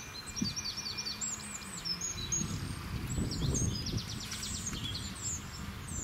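Small songbirds chirping and twittering in quick runs of high notes, with a fast trill about halfway through. A low rustling noise swells under them in the middle.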